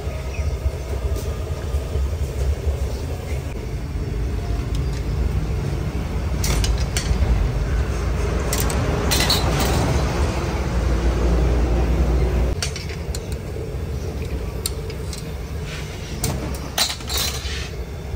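A steady low rumble, louder in the middle and dropping suddenly about two-thirds of the way through, with scattered sharp metal clinks from the long iron tandoor skewers.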